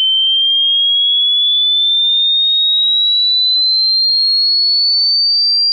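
A single high-pitched pure sine tone climbing slowly and evenly in pitch at a steady loudness. It is a hearing-test frequency sweep running from low to high.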